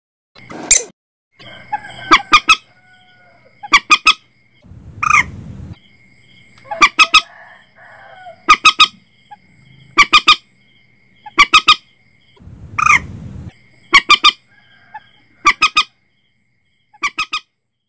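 Common moorhen calls from a bird-lure recording: quick groups of two to four sharp notes, repeated every second or two. Twice there is a longer call with a low rumble under it, and a faint steady high tone runs beneath.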